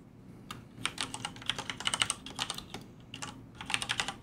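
Computer keyboard being typed on: a run of quick key clicks in uneven bursts, starting about half a second in.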